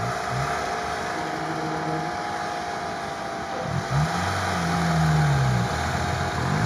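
Lada Niva engine revving as the stuck car strains to climb out of deep sand. The revs rise and fall a few times, with the hardest push about four seconds in.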